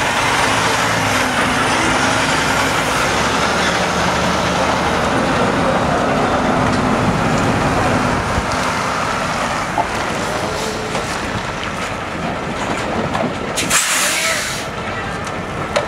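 Diesel semi-truck pulling a livestock trailer passes close by, engine running and tyres rolling, then fades as it moves off. A brief hiss comes near the end.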